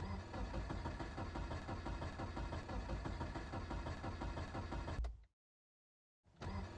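Car engine cranking on the starter in a cold start without catching, a fast even churn for about five seconds. It cuts off suddenly, and a second cranking attempt begins near the end.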